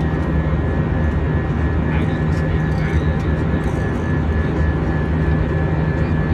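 Steady cabin noise of an Airbus A319 in flight, heard from a window seat beside the wing: a low, even drone from the jet engines and airflow, with a thin steady whine above it.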